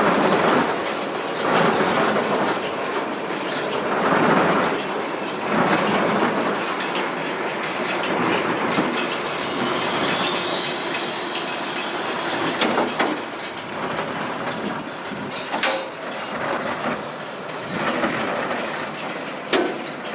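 Case IH 8575 large square baler running: a steady mechanical clatter and rattle that swells every second or two, with a few sharp knocks.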